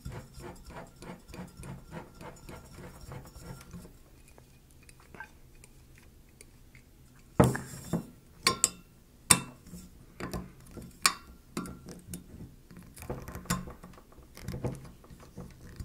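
Waiter's corkscrew being twisted into a wine bottle's natural cork: a quick, even run of faint creaking clicks, about five a second, for roughly four seconds. After a pause, a series of sharp clicks and knocks follows, the first the loudest, as the metal lever is set on the glass lip and worked against a tight cork.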